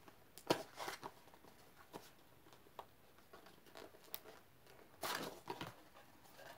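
Packaging being handled and opened: scattered rustles, small taps and clicks, with a denser burst of crinkling about five seconds in.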